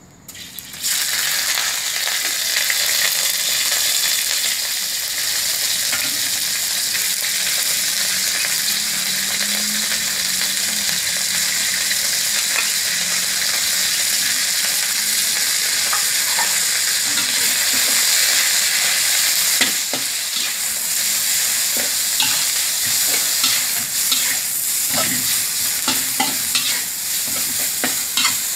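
Chopped raw pork hits hot oil in a wok about a second in and sizzles loudly and steadily as it fries. It is stir-fried with a metal spatula, which clicks and scrapes against the wok more often in the second half.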